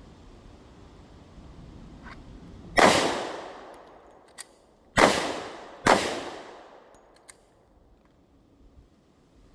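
Three handgun shots fired after a draw from concealment: one about three seconds in, then two more close together about two seconds later, each trailing off in an echo. A few faint small clicks come between the shots.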